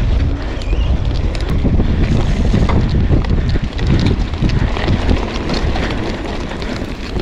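Wind buffeting the microphone and mountain-bike tyres rumbling over a dirt trail, with frequent clicks and rattles from the bike over the bumps. It grows a little quieter from about five seconds in as the bike slows.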